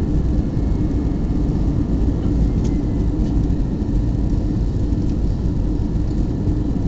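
Steady cabin noise of an Airbus A320 in flight, heard inside the cabin at a window seat beside the wing: engine drone and rushing airflow with a steady low hum running through it.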